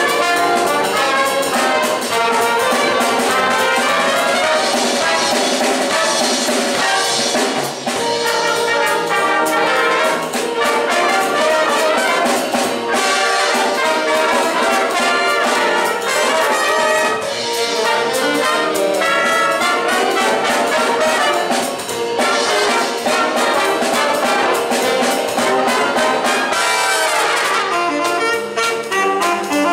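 Student jazz big band playing, with the brass section of trumpets and trombones to the fore over saxophones and rhythm section.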